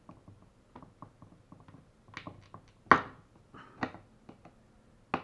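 Hard plastic water jug being jabbed at its top with a pointed tool to pierce a hole: scattered clicks and irregular sharp knocks, the loudest about three seconds in. The thick, hard plastic resists the point.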